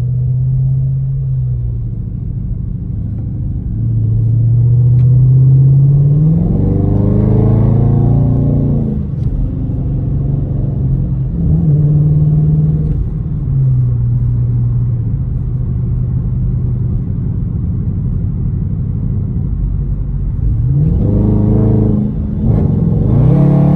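2018 Dodge Charger R/T's 5.7-litre Hemi V8 running steadily under way, with its note climbing under hard acceleration about seven seconds in and again near the end.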